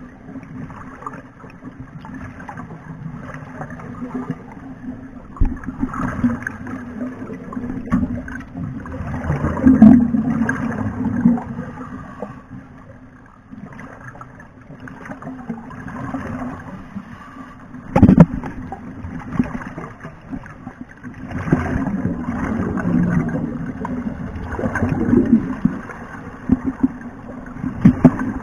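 Underwater gurgling and bubbling that swells every few seconds over a steady low hum, with one sharp knock partway through.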